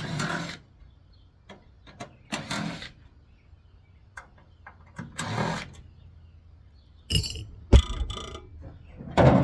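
Metal parts of a GE microwave oven being handled as it is taken apart for scrap: short bursts of scraping and rattling a few seconds apart, then clattering, ringing metal with one heavy thunk about eight seconds in.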